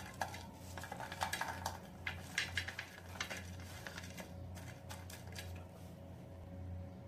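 Perforated metal skimmer clinking and scraping against a ceramic plate as fried pakoras are slid off it, a quick run of clatters in the first few seconds, over a steady low hum.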